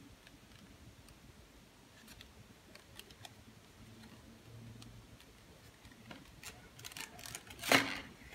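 Clear plastic CPU clamshell tray being handled: scattered light clicks and crinkles, growing busier near the end, with one louder plastic crackle about three-quarters of a second before the end as the tray is squeezed.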